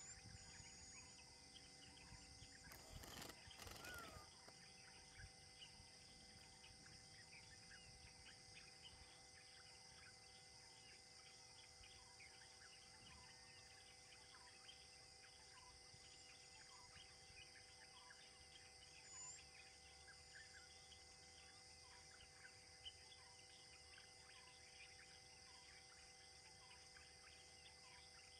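Faint forest ambience: a steady high-pitched insect drone with scattered small bird chirps, and a brief louder burst of noise about three seconds in.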